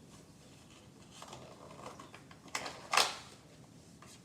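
A goodie bag's packaging rustling as it is torn open by hand, with sharp crackles about two and a half and three seconds in, the second the loudest.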